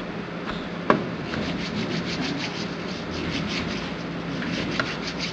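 A wall-mounted hand-hygiene dispenser's pump clicks once when pressed, about a second in. Then hands rub together briskly with the dispensed liquid, a quick rhythmic rubbing of several strokes a second.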